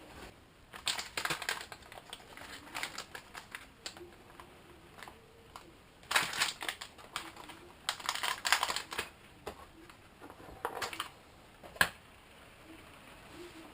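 Irregular bursts of crackling, rustling and clicking from packaging and parts being handled during an unboxing. There are clusters of quick clicks, with one sharp click near the end.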